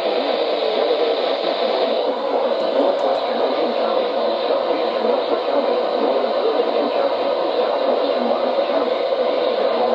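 Steady radio static hissing from a weather radio receiver, with no voice coming through.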